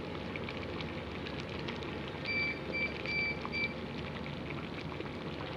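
Pot of hamud shalgham (turnip and rice soup with bulgur kubba) simmering at a steady boil, with a continuous crackle of small bubbles. Four short electronic beeps sound about two seconds in.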